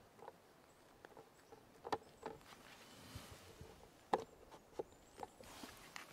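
Paintbrush dabbing and stroking oil paint on a canvas: a series of soft, irregular taps with a short brushing scrape near the end.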